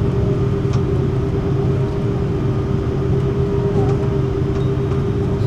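Steady drone of a passenger vehicle's interior, with a constant low hum and a steady mid-pitched tone and no changes.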